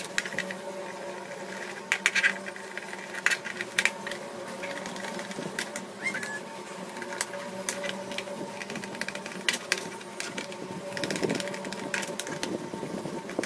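Lenovo IdeaPad 320 laptop being taken apart: irregular clicks and taps of small tools, screws and plastic case parts, over a steady hum.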